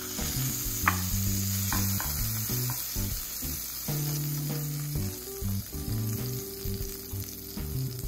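Buttered steak sizzling in a hot Corning Ware skillet as it is flipped with a spatula, under background music.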